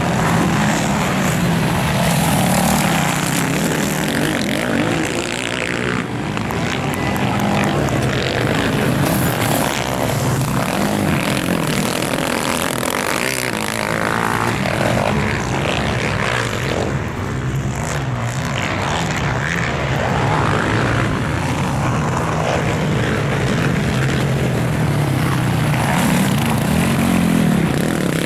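Racing quad bike (ATV) engines revving hard on a motocross track, the pitch rising and falling as the riders work the throttle. Several quads are heard in turn.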